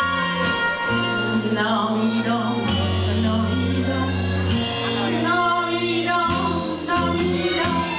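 An elderly woman singing a Japanese enka song into a microphone over instrumental backing music, her phrases coming in about a second and a half in and carrying a wavering vibrato.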